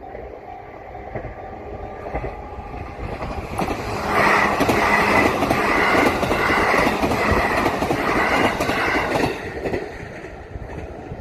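An electric train passes over a level crossing: its running noise builds, then from about four seconds in the wheels clatter loudly and rhythmically over the rail joints for about five seconds before it drops away. Early on, the crossing's JR standard warning bell still rings faintly in a steady repeating pattern.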